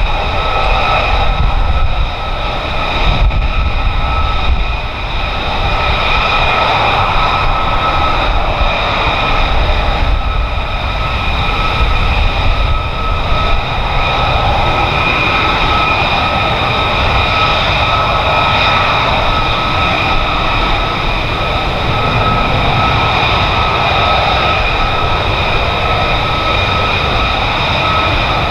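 F-35B's F135 jet engine running at steady power: a continuous rumble with a steady high-pitched whine over it, holding level throughout.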